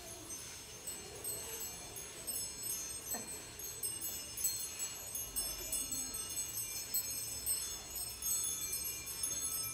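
Small metal bells jingling and ringing as a percussion instrument, many high, thin tones overlapping and shimmering, with a single light tap about three seconds in.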